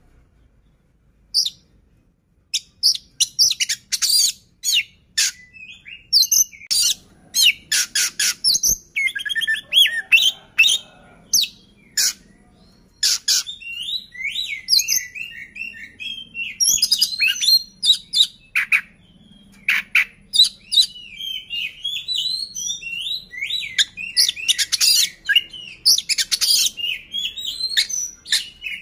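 A male Oriental magpie-robin (kacer) in full song: a long, varied string of sharp clipped notes and rapid warbling whistles, beginning after a short pause about a second and a half in.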